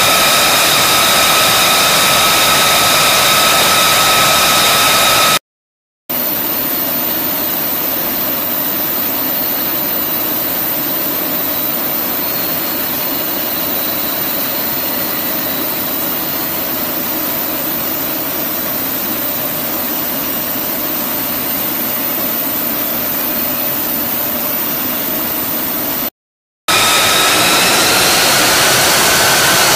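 F-35A Lightning II's Pratt & Whitney F135 turbofan running at ground idle: a steady high whine over a rushing noise. The sound drops out briefly twice, and in the last part the whine rises slightly as the jet is marshalled out to taxi.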